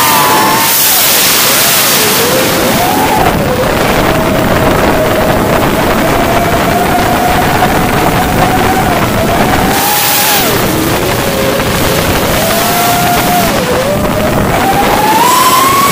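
Onboard sound of a radio-controlled model aircraft in flight: its motor and propeller whine, rising and falling in pitch with the throttle, under heavy rushing wind. The pitch dips about two seconds in, holds steady for several seconds, drops away around ten seconds in, then climbs again near the end.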